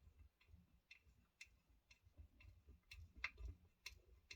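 Faint, irregular small clicks and ticks of a small screwdriver and metal kit parts being handled during hand assembly, a few slightly louder ones about three to four seconds in.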